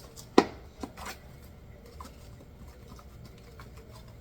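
A sharp knock, then a few lighter clicks and taps of kitchen utensils and containers being handled while measuring out baking soda.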